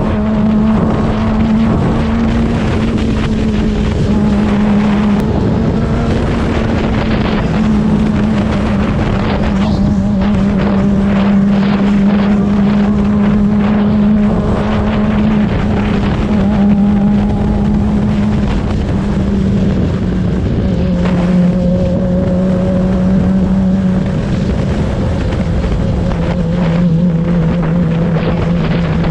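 Suzuki GSX-R600 inline-four engine running at a steady cruising speed on the road, with wind noise on the microphone. The engine note sags a little lower over the last few seconds as the throttle eases off.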